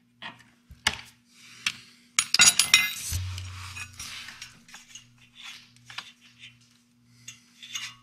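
Steel sockets and hand tools clinking against one another. A quick cluster of sharp, ringing clinks comes two to three seconds in, with scattered single clicks around it.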